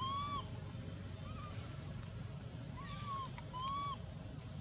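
Baby macaque giving short, high-pitched, arching coo calls, about four in all, two of them close together near the end.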